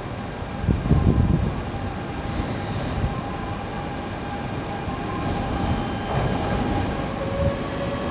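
E2 series Shinkansen train pulling out and rolling past: a steady low rumble of wheels and running gear with a faint steady hum. It swells loudest about a second in.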